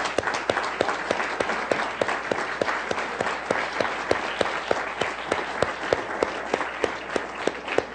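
A small audience applauding, with one person's loud, close claps standing out at about three a second over the crowd's clapping.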